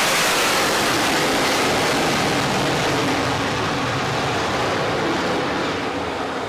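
F-35C's F135 turbofan jet engine running loud as the fighter touches down for an arrested landing on the carrier deck: a steady rush of jet noise that eases slowly.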